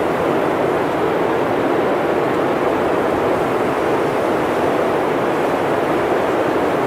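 Blizzard wind blowing with a steady, even rushing noise, deep and unbroken, without gusts or breaks.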